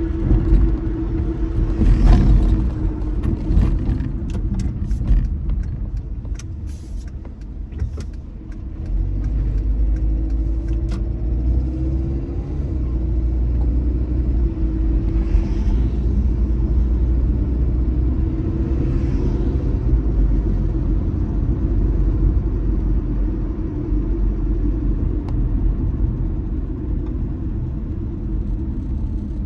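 Car driving through city streets: a steady low engine and road rumble that eases off about eight seconds in, then builds again and holds steady. A few faint clicks come and go in the first ten seconds or so.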